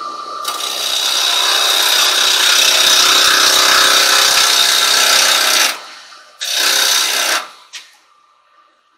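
Carbide chisel cutting a spinning silver birch bowl blank on a wood lathe: a loud, steady scraping hiss for about five seconds, then a second, shorter cut. Near the end only the lathe motor's faint hum is left.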